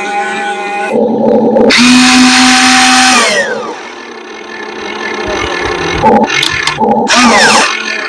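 Electric motor whine of RC construction models, in short stretches that start and cut off abruptly, one whine falling in pitch as the motor slows down about halfway through.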